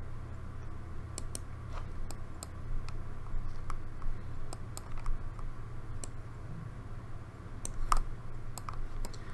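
Irregular, scattered clicks of a computer mouse and keys, over a steady low hum.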